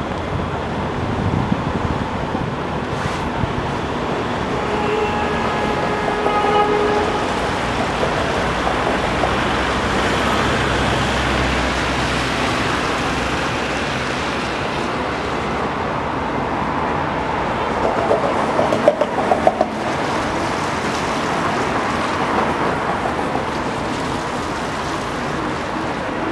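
Steady city street traffic noise from passing road vehicles. A brief pitched toot, like a vehicle horn, comes about five to seven seconds in, and a short run of sharp knocks or clatter comes around eighteen to twenty seconds in.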